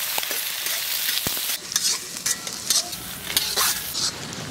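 Sliced onions sizzling in hot oil in a black iron kadai, with a steady hiss. From about a second and a half in, a metal ladle stirring them gives many short scrapes and clicks against the pan.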